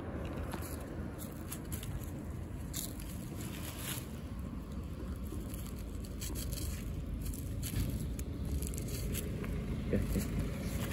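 Steady low outdoor rumble with scattered faint clicks and rustles.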